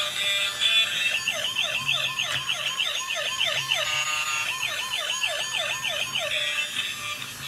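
Electronic siren from a battery-powered bump-and-go toy police car: a fast warbling wail, about four falling sweeps a second, with a short break near the middle.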